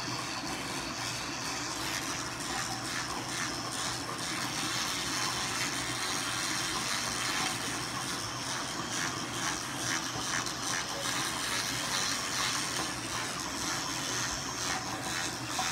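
Steady rushing hiss of water running in a bathroom, with faint irregular scratchy strokes over it.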